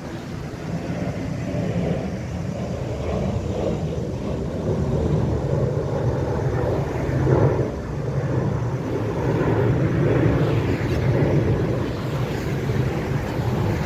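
Road traffic passing on a nearby road: a steady noise that swells and eases as vehicles go by.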